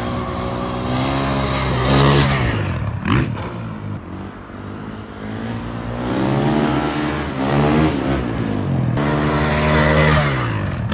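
Dirt bike engine revving hard and shifting up through the gears, its pitch climbing and then dropping several times as the bike accelerates, lets off and gets back on the throttle.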